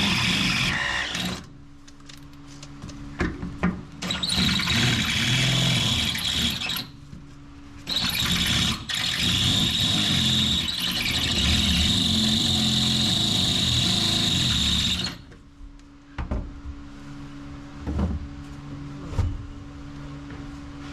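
A handheld power tool cleaning bare sheet metal with a high squeal, running in three bursts and stopping for good about fifteen seconds in. After that a lower steady hum remains, with a few sharp knocks.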